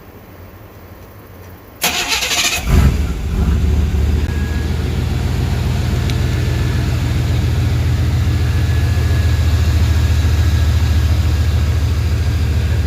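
GMT400 pickup truck's engine being started: about two seconds in the starter cranks it for under a second, it catches with a brief rev, then settles into a steady idle.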